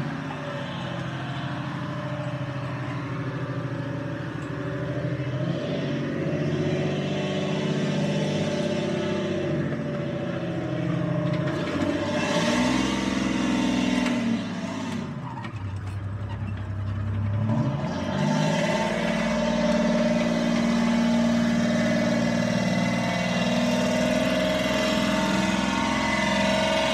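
Tracked tank's engine running under load as the tank drives off. About halfway through, the engine note falls and then climbs back up.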